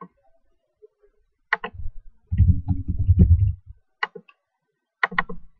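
Computer mouse clicks, single and in a quick pair near the end, with a louder low rumble lasting about a second in the middle.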